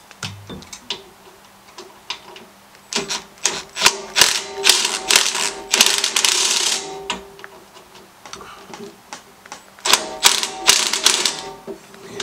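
Cordless impact driver hammering out fuel-tank bolts, in two runs: a longer one from about three to seven seconds in and a shorter one near the end. Scattered clicks of the socket and tool being handled come between.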